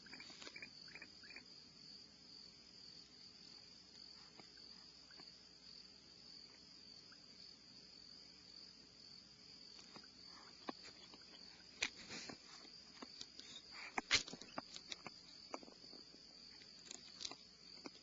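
Steady high-pitched trill of insects chirring without a break. A cluster of sharp clicks and knocks comes about two-thirds of the way in, the loudest a little after that.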